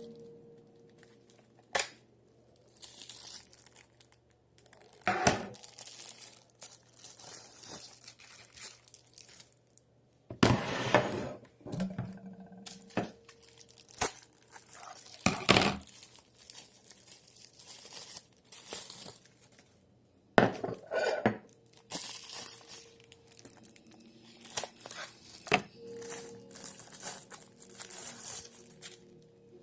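Irregular handling sounds of a fixed-blade karambit knife and its hard plastic sheath: crinkling and rustling, with sharp clicks and light metallic clinks at uneven intervals.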